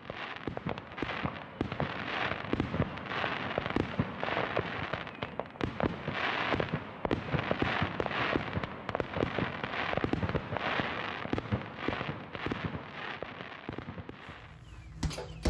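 Fireworks going off: a dense crackle of many pops and bangs, dying down near the end.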